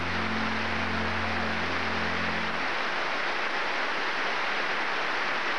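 Audience applauding steadily. Under it the song's final low held chord sounds and ends a little under three seconds in.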